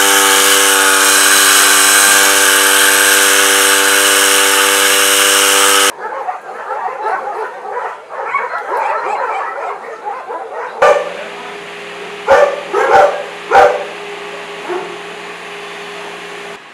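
Two-stroke backpack brush cutter running steadily at high revs for about six seconds, then stopping abruptly. After that, dogs barking and yelping in kennels, with three loud barks close together about twelve to fourteen seconds in, over a steady hum.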